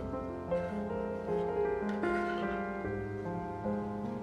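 Background piano music, slow notes held and overlapping.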